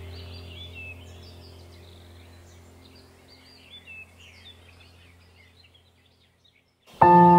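Bird chirps over a low, steady ambient music drone, both fading away to near silence. Just before the end a struck bell tone starts suddenly, loud and ringing on.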